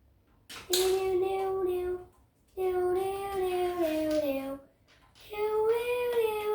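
A child singing three long, drawn-out phrases with no clear words. The notes are held steady and step down in pitch at the end of the first two phrases. The third phrase, starting about five seconds in, swoops down and back up.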